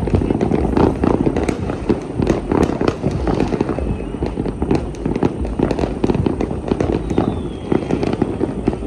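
Many fireworks and firecrackers going off at once across a city: a dense, continuous stream of pops and bangs with no break.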